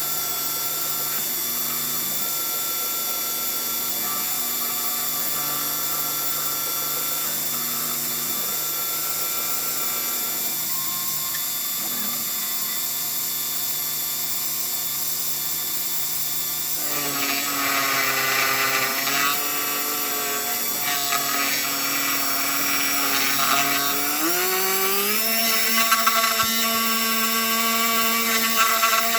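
Homemade CNC mini mill running: a steady motor whine with several held tones. From about 17 seconds in it turns rougher and busier, with shifting tones as the machine works, and near 24 seconds the whine rises in pitch and holds higher.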